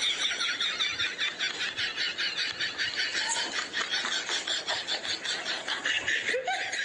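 Steady high-pitched insect chirring, pulsing rapidly without a break.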